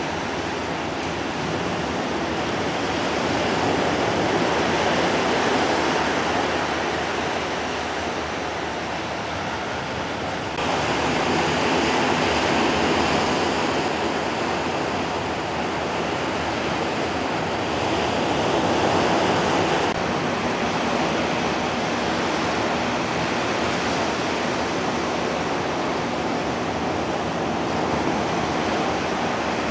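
Ocean surf washing up the beach: a steady rush of small waves that swells and eases every few seconds.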